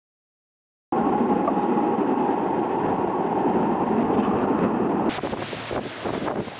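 Hurricane wind and driving rain: a loud, dense, steady rush that starts abruptly about a second in. About five seconds in it gives way to a brighter hiss of wind-blown rain, with gusts buffeting the microphone.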